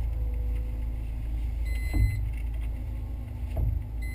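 Nissan Almera GTI's engine running at low revs, heard inside the stripped rally cabin as a steady low rumble. A short high beep sounds about two seconds in, with another starting right at the end, and there are a couple of dull knocks, the loudest one with the first beep.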